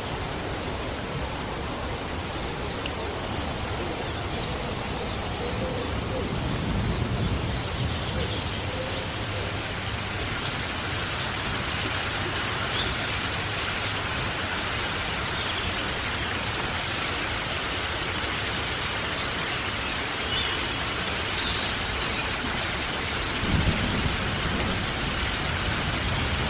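Light rain falling steadily, with short high bird chirps scattered through it and two brief low rumbles, one about seven seconds in and one near the end.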